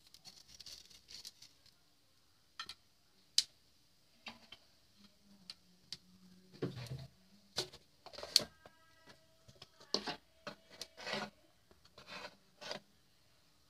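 Hot oil with mustard seeds, carom seeds and dried curry leaves sizzling faintly in a pan, mostly in the first couple of seconds, with a dozen or so scattered sharp clicks and knocks.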